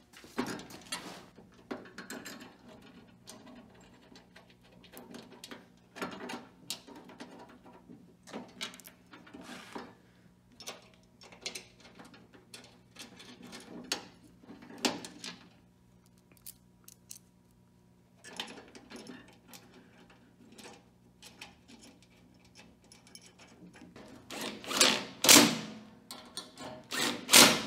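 Hand work on the metal latch hardware of a VW Mk1 Caddy tailgate: scattered metallic clicks, rattles and knocks, with a few louder knocks near the end.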